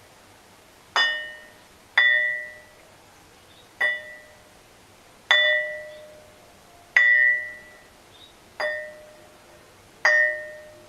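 A long, flat stone slab struck seven times at uneven intervals of one to two seconds, each strike ringing like a bell with a clear lower and higher tone that fade within about a second. The slab is held in the hand, and the fingers underneath damp some of the ringing.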